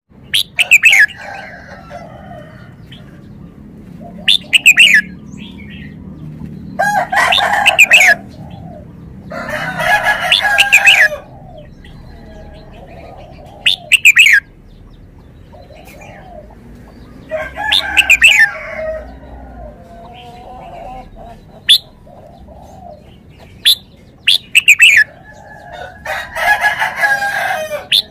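Caged red-whiskered bulbul singing: short, loud phrases of clear notes, about ten of them a few seconds apart, with softer bird calls between.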